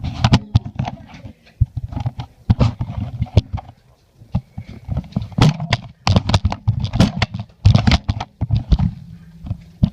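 Rapid, irregular thuds and knocks of footsteps running, with the carried camera being jostled.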